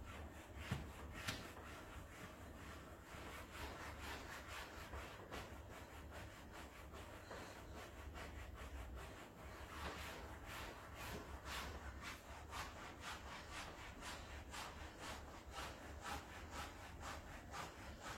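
A run of short rubbing strokes, settling to about two a second in the second half.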